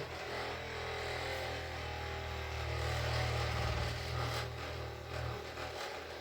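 A small electric motor humming steadily at a low pitch, then stopping a little over five seconds in.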